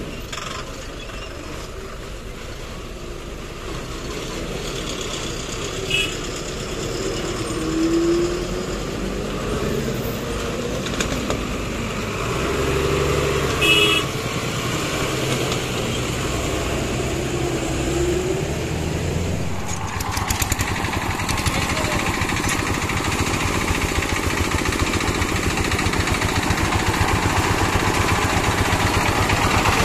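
Heavy Tata lorry diesel engines running and revving up a few times as they crawl across a railway level crossing, with two short horn beeps among the traffic. From about 20 s a small exposed single-cylinder diesel engine on a crude utility vehicle chugs close by with a fast, even beat.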